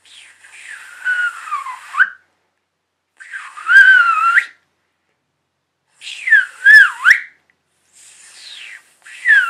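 A man doing a loud fingerless whistle with his tongue and lower lip against his teeth, no fingers in the mouth. It comes as four short blasts and one fainter one, each bending down and back up in pitch, with a breathy rush of air around them.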